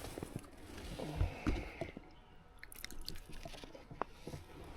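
Handling noise close to the microphone while a freshly caught smallmouth bass is held: scattered soft clicks and taps, with a couple of low thumps about a second in.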